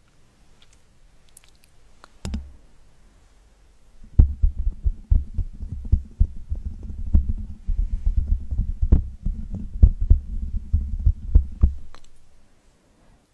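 Hands rubbing close against the microphone: a dense run of low thuds and rustling with sharp clicks that starts about four seconds in and stops near the end, after a single thump about two seconds in.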